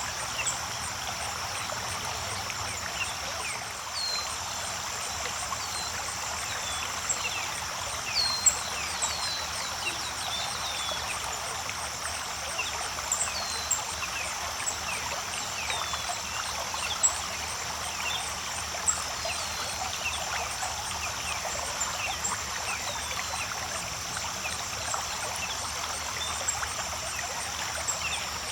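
Creek water running steadily, with scattered short, falling bird chirps and a steady high-pitched insect chorus.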